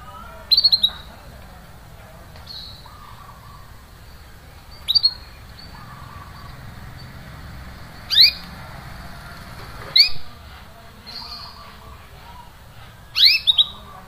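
Canary calling with short, sharply rising 'cuit cuit' chirps in five separate bouts a few seconds apart. Some bouts are quick runs of two to four chirps.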